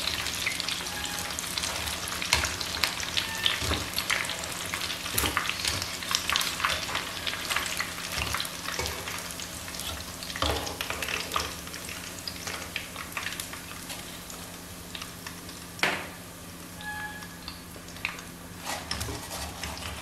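Breaded chicken kebabs frying in hot oil, a dense crackling sizzle that thins and grows quieter in the second half. Now and then a sharp clink of metal tongs and a wire skimmer against the pan as the kebabs are lifted out.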